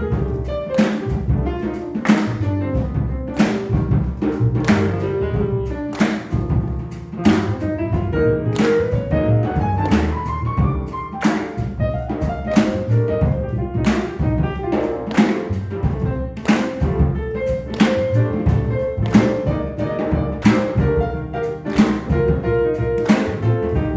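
Jazz piano trio playing live: acoustic piano, upright double bass and drum kit with regular cymbal strokes. A rising run of piano notes comes around ten seconds in.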